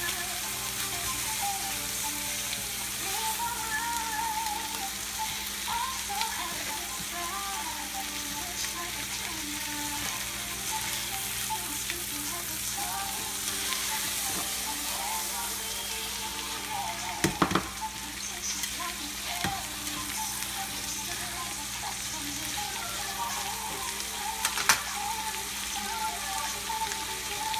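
Flank steaks sizzling steadily in melted butter in a hot nonstick skillet. Two sharp clicks cut through the sizzle, one about two-thirds of the way in and one near the end.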